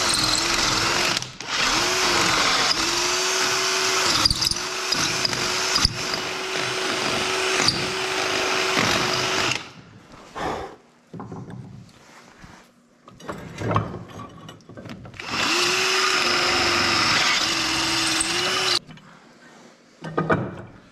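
Cordless drill with a half-inch twist bit drilling down through a vise's mounting hole into the bench top. The motor whine dips in pitch again and again as the bit bites. It stops about ten seconds in, gives way to a few knocks of handling, then runs again for about three seconds and stops near the end.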